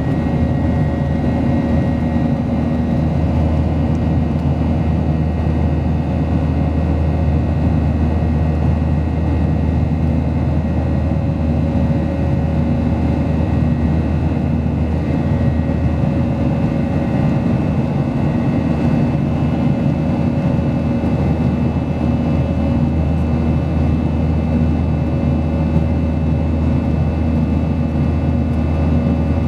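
Boeing 737-800's CFM56 turbofan engines heard from inside the passenger cabin: a steady drone with a low rumble and a few constant humming tones.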